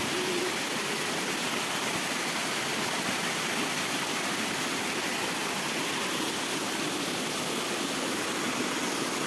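Steady rushing water, a continuous even hiss with no pauses.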